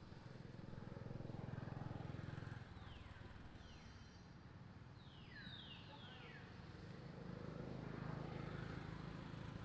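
Low hum of a motor vehicle engine that swells twice, with a few quick high chirps falling in pitch in the middle.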